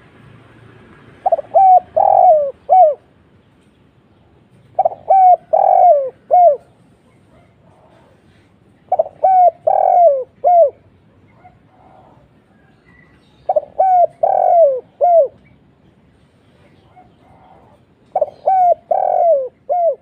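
Spotted dove cooing: five phrases about four seconds apart, each a quick run of coos with two short notes, a longer one, and a short final note.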